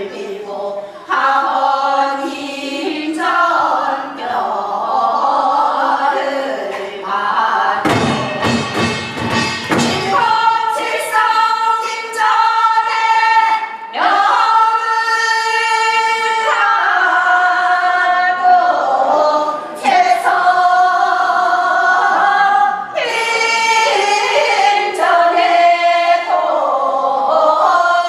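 A group of voices singing Gyeonggi hwimori japga, a Korean folk song genre, in unison with long held and bending notes. A short run of sharp strikes comes about eight seconds in.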